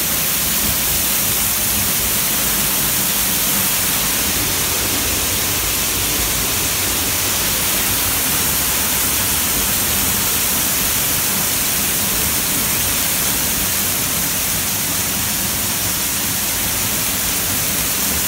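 Little Mashel Falls' waterfall rushing in a steady, loud roar of falling water, heard from right behind the curtain of water.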